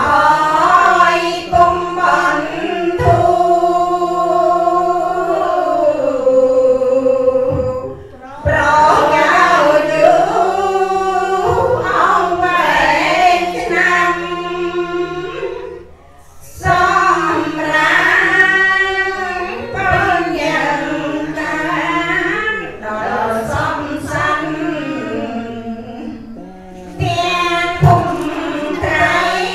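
A group of Cambodian Buddhist laywomen chanting together in unison, led by a woman on a microphone. The chant is melodic and sung in long phrases, with short breath pauses between them.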